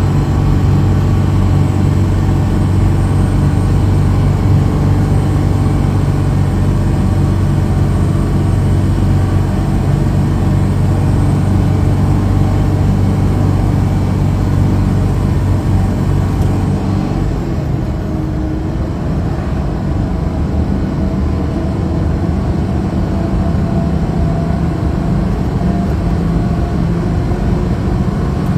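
Steady engine and road noise of a truck being driven. The low engine hum changes pitch about 17 seconds in.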